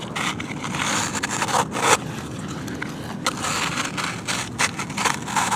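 A toy digging vehicle scraping and pushing through dirt: irregular gritty scrapes and crunches, the loudest a little under two seconds in.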